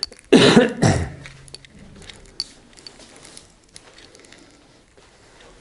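A man coughing twice, close together, about a second in, followed by faint scattered ticks.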